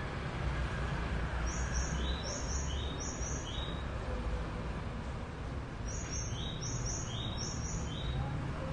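A bird chirping: two bouts of quick, high, repeated chirps, each bout about two seconds long, over a steady background hum.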